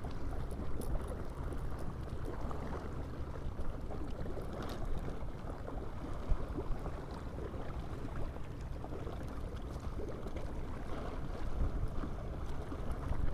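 Wind buffeting the camera microphone by open water: a steady low rumble that rises and falls a little.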